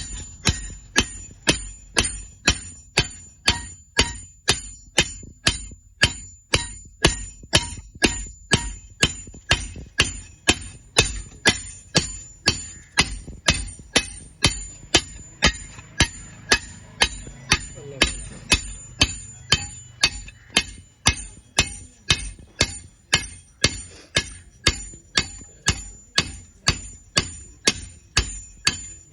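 A hammer striking an iron piece in a steady rhythm, about two blows a second, each with a short bright metallic ring.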